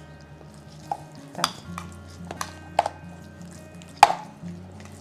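A spoon stirring and clinking against a bowl of black sticky-rice porridge, about four sharp clinks with the loudest near the end, over soft background music.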